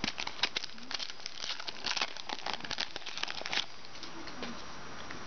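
Crinkling of foil trading-card pack wrappers as packs and cards are handled: a quick run of short rustles and clicks that dies down after about three and a half seconds.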